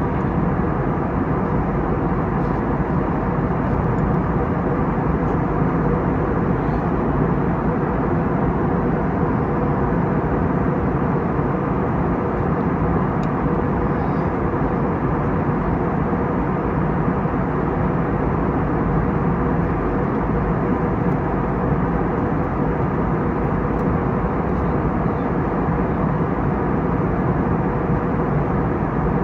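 Steady engine and airflow noise inside the cabin of an Airbus A321neo, its Pratt & Whitney PW1100G geared turbofans running at a constant setting, with a faint steady hum under the rush.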